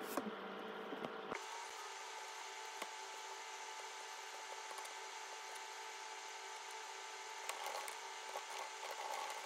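Faint typing on a laptop keyboard, soft key clicks over a steady room hum, with the clicking busier near the end.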